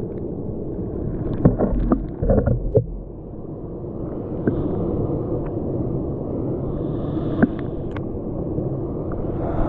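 Steady rushing of a waterfall, heard as a deep, even roar, with a few sharp knocks about two seconds in and another single knock later.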